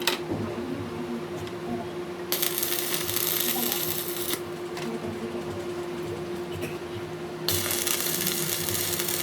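A workshop machine running with a steady hum. About two seconds in, and again near the end, loud hissing noise joins it for roughly two seconds each time.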